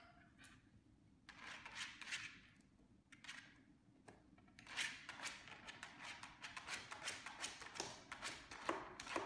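Plastic candy wrappers crinkling and rustling as a small dog noses and paws through a bowl of wrapped candy. The sound is faint: a short patch about a second in, then near-continuous crackling from about five seconds in.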